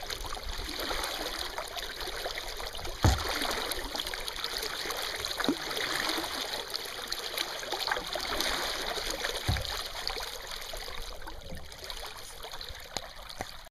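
Water trickling and dripping around a kayak on a river, with three dull knocks; the loudest knock comes about three seconds in.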